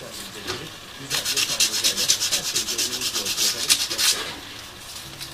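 Abrasive paper rubbed by hand over a fretsawn brass motif to polish it: a couple of single scrapes, then about a second in a quick run of back-and-forth strokes for some three seconds before it stops.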